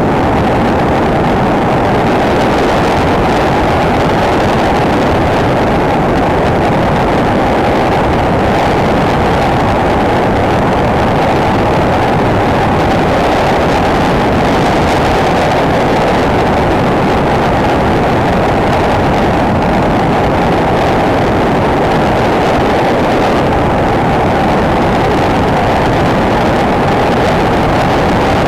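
Enduro motorcycle being ridden: a loud, steady, muffled rush of engine and wind noise with no distinct changes.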